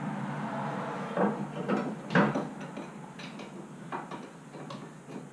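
Steel socket and breaker bar clanking on a rusted 17 mm brake caliper carrier bolt while he works it loose: a series of irregular metallic knocks, the loudest about two seconds in.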